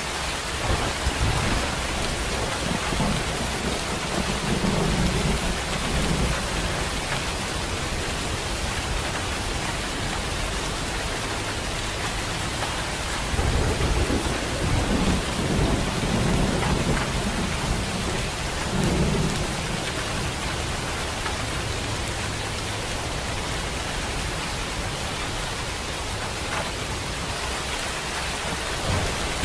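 Steady heavy rain hissing evenly, with low thunder rumbling in the first few seconds and a longer rumble about halfway through.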